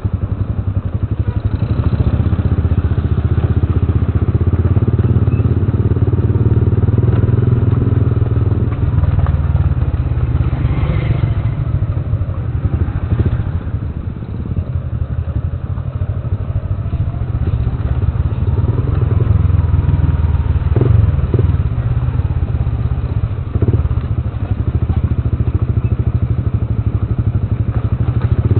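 Motorcycle engine running as the bike is ridden slowly over a broken, rocky, muddy road, a steady low drone with occasional knocks and rattles from the bumps, a few of them about two-thirds of the way through.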